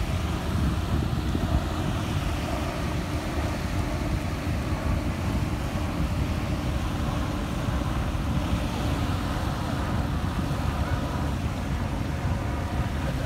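Small waves breaking and washing on a shingle shore, with wind buffeting the microphone in a steady low rumble.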